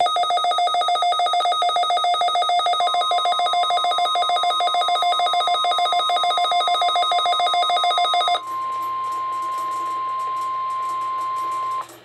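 Midland WR-300 weather radio sounding its rapid pulsing alert beep for about eight seconds as it receives the NOAA Required Weekly Test. A steady single-pitch tone, the station's warning alarm tone coming through the radio's speaker, joins a few seconds in, carries on alone after the beeping stops, and cuts off just before the end.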